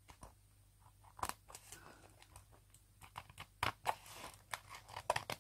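Scissors snipping through paper in a series of short, irregular cuts along a folded line.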